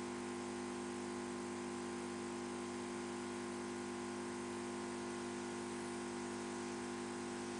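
A steady hum of several constant tones over an even hiss, unchanging throughout.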